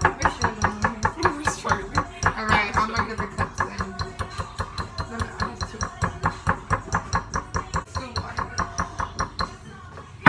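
A utensil clicking rapidly and evenly against a mixing bowl as cake batter is stirred by hand, about five strokes a second, stopping near the end.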